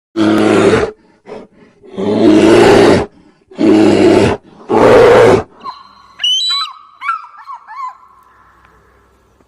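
Lion roaring: four loud, deep calls of about a second each. These are followed by a couple of seconds of fainter high chirping calls that fade away.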